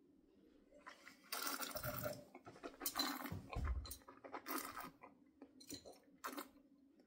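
Someone tasting red wine: a sip, then a noisy slurp of air drawn through the wine lasting about a second, followed by small wet swishing and smacking mouth sounds as the wine is worked around the mouth.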